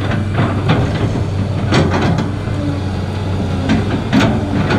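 Large excavator's diesel engine running with a steady hum, with several short clanks from the machine as it works.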